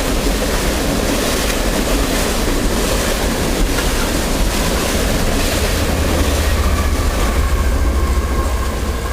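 Mixed freight train rolling past: a steady, loud rumble of steel wheels on rail with faint clicking over the rail joints, swelling somewhat in the second half, and a faint thin squeal of wheels near the end.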